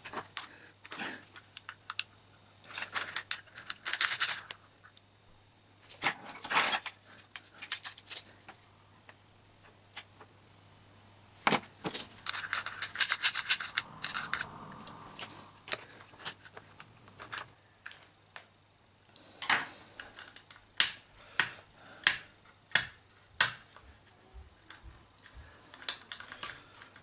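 Small screwdrivers clicking and scraping against the plastic shell of a computer mouse as it is pried apart: irregular sharp clicks and short scrapes, with a longer stretch of scraping midway and a run of evenly spaced clicks near the end. A faint steady low hum sits underneath.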